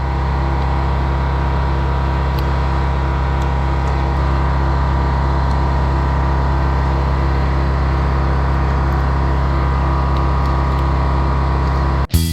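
A motor or engine running with a steady, unchanging low hum that cuts off abruptly near the end.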